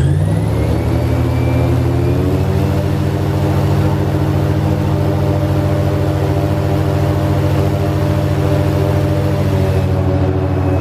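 Airboat engine and propeller speeding up over the first two seconds, then running steadily at a loud, even pitch.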